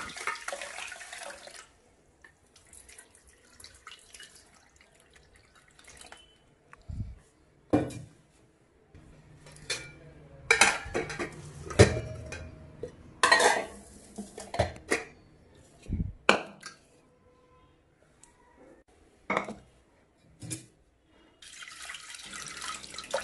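Stainless-steel pots, lids and plates clinking and knocking against one another and the stovetop, in scattered separate knocks. Water sloshes as rice is washed by hand in a steel pot at the start, and water is poured into an aluminium pressure cooker of dal near the end.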